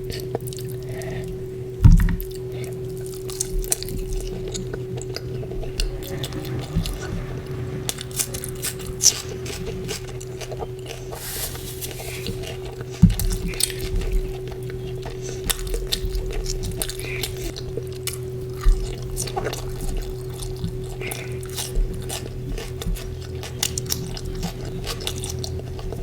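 Close-miked eating of chicken curry with porota: wet chewing and lip smacks with frequent short clicks. A steady low hum runs underneath.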